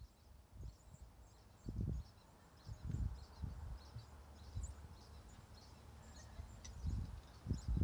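Small birds chirping and twittering in the background, with irregular dull low thuds and bumps a few times.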